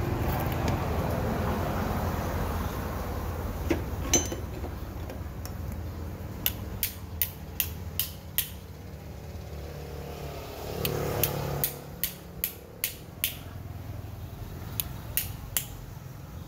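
Light hammer taps on a metal drill part, in short runs of several sharp taps at about three a second. A low rumble is heard in the first few seconds and fades.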